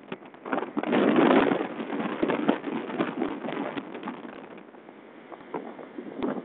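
Outboard motorboat under way at speed: water rushing along the hull with many short knocks as it slaps the waves, and wind on the microphone. A louder rush comes about a second in.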